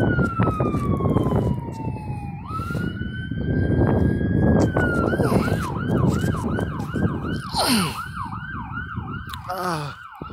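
Ambulance siren, first in a slow wail that falls and rises, then switching about five seconds in to a fast yelp of about three cycles a second, over the rumble of road traffic.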